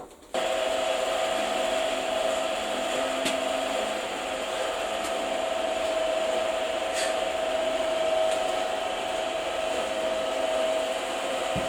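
An electric machine switched on about half a second in, its motor then running steadily with an even whirring hum.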